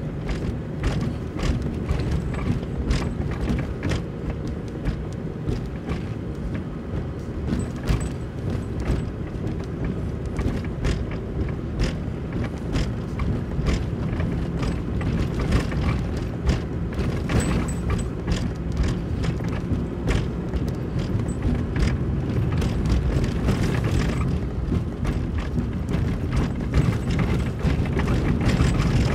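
Car driving over a rough, cracked and patched asphalt road: a steady low road rumble with frequent knocks and rattles as the wheels hit the cracks and patches.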